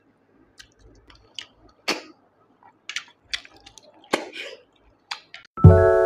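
Short wet slurps and sucking clicks from a mouth pulling snail meat out of the shells of a snail curry, about a dozen separate sucks spread irregularly. Keyboard music with sustained chords starts abruptly near the end.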